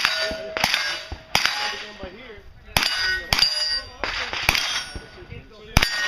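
Gunshots fired singly at steel targets, about eight shots at an uneven pace, each followed by the clang and ring of a struck steel plate.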